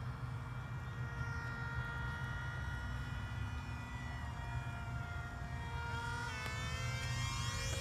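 Electric motor and pusher propeller of a 17-inch foam RC MiG-29 jet whining in flight, its pitch sliding slowly up and down and changing more steeply near the end. A low rumble of wind on the microphone lies underneath.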